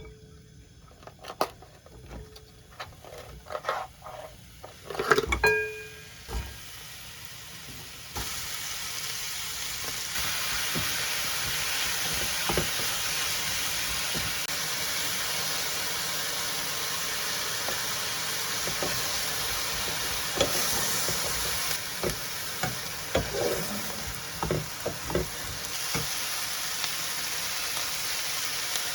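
A few clinks and knocks of utensils, then, about eight seconds in, food starts sizzling steadily in a frying pan, with occasional knocks as it is stirred.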